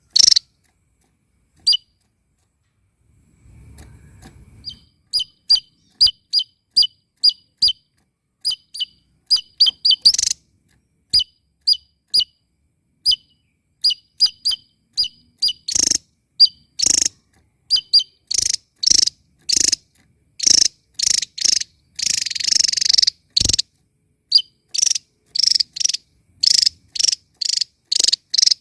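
Javan tesia singing loudly: a long run of short, sharp, high chirps, a few a second, which crowd together into a quick chattering run about two thirds of the way through.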